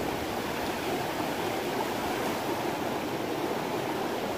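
Fast, silt-laden river rushing past in turbulent whitewater: a steady, unbroken noise of churning water.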